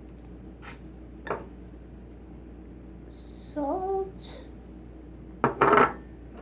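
A tabletop clatter of dishes and utensils: a light click early, then a sharp double clink near the end as something is set down against a plate.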